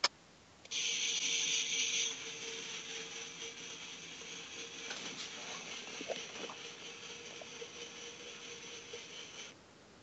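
Toy claw machine's small geared motor running, a mechanical gear whir with a steady whine. It starts about a second in, is loudest for its first second or so, and cuts off near the end.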